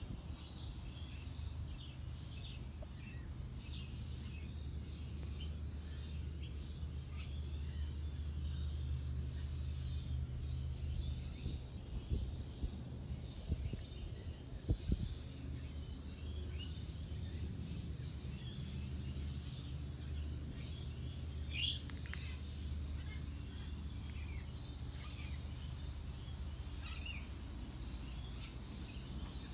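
Outdoor nature ambience: a steady high-pitched insect trill with scattered bird chirps over a low background rumble, and one louder sweeping chirp about three quarters of the way through.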